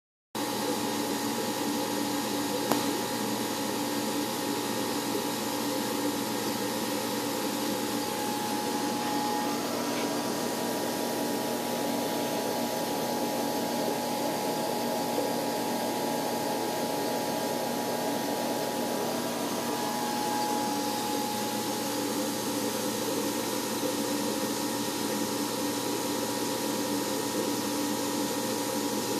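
A steady mechanical hum and hiss of running machinery, with a single short click about three seconds in.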